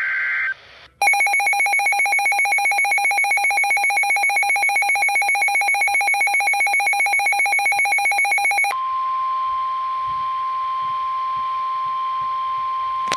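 Weather-radio alert signals ahead of a National Weather Service severe thunderstorm warning. A short burst of warbling data tones, the SAME header, ends half a second in. A rapidly pulsing electronic alarm at about six or seven pulses a second follows for nearly eight seconds, then the steady single-pitch 1050 Hz warning alarm tone.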